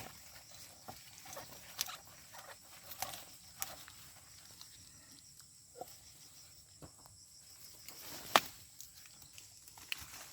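Scattered light clicks, snaps and rustles, with one sharp, much louder snap about eight seconds in, as gourd vines are handled during harvesting.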